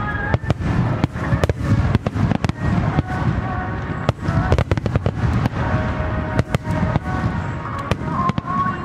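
Fireworks display: aerial shells bursting in quick succession, several sharp bangs a second over a continuous low rumble, with music playing underneath.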